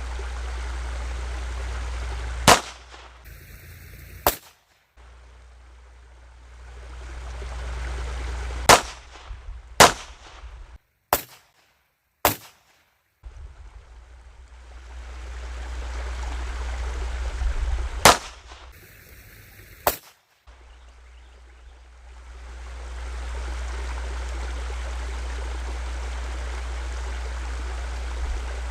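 .22 calibre firearm fired in single shots at an irregular pace, about eight over the span, some a second or two apart and others several seconds apart. Wind rumbles on the microphone between the shots.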